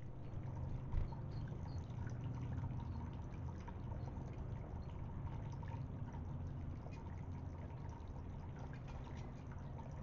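Small tiered cascading fountain trickling steadily, water spilling from bowl to bowl with many small drips and splashes; faint.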